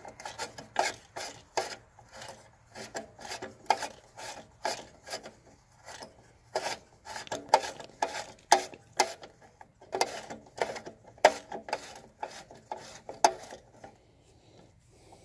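Hand rubbing and scrubbing dirt off the recoil-starter cover of an old Locke reel mower's small engine, in quick irregular scraping strokes that stop near the end.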